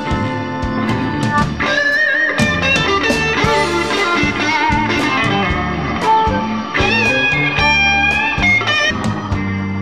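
Electric blues band playing an instrumental passage: a lead electric guitar plays bent notes with vibrato over a bass and drum backing.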